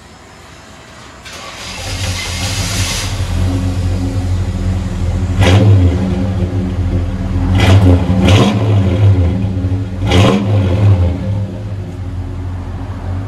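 1971 Chevrolet Chevelle SS V8 through a true dual exhaust with 2¼-inch pipes, an H-pipe and Flowmaster Super 10 mufflers: the engine starts up about a second in, is revved in four quick throttle blips, then settles to a steady idle.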